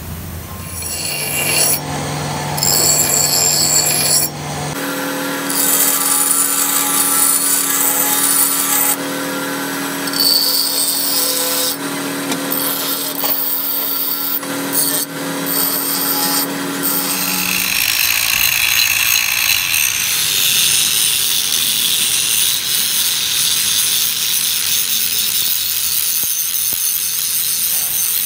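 Steel being ground by power tools: a bench grinder whining steadily as a small steel piece is held against its wheel, then, about two-thirds of the way through, a handheld angle grinder with a flap disc grinding the steel of a truck's front axle with a hissing rasp.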